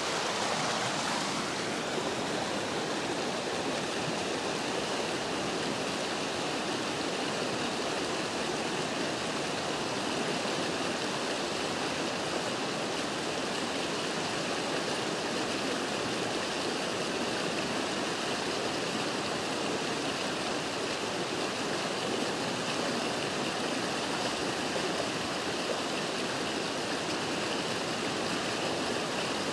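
Steady rushing of a fast-flowing river running over rapids.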